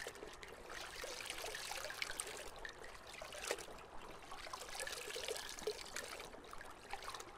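Faint trickling water with scattered small drips.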